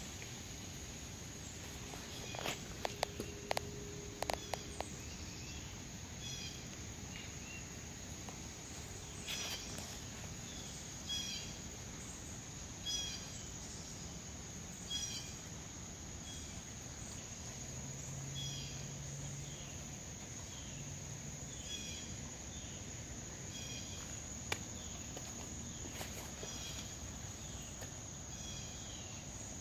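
Outdoor ambience: a bird repeats a short high chirping call every second or two over a steady high drone of insects, with a few sharp clicks a few seconds in.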